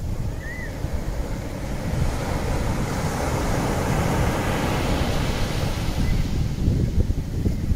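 Sea water rushing and breaking along the side of a moving cruise ship, with wind buffeting the microphone in a steady low rumble.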